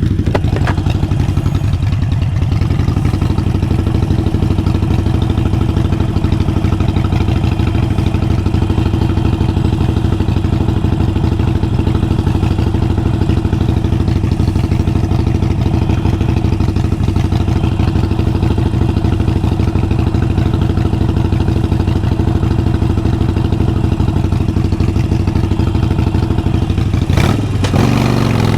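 Harley-Davidson Sportster 883 Iron's air-cooled V-twin running at steady revs through a Vance & Hines exhaust, loud and even in pitch. Its note changes briefly near the end.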